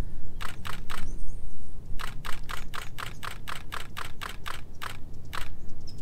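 Nikon Z6 camera shutter firing in continuous bursts: three quick frames, then a run of about fourteen at roughly four to five frames a second.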